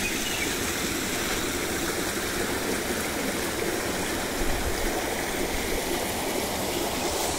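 Shallow stream running over and around boulders, a steady rush of flowing water.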